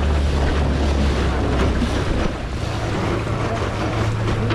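Motorboat engine running steadily under way, a low hum under heavy wind buffeting the microphone.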